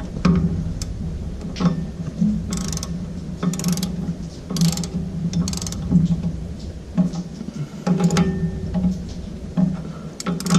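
Hand ratchet wrench clicking in short back-and-forth strokes, about one a second, as the flywheel bolts are snugged down to seat them.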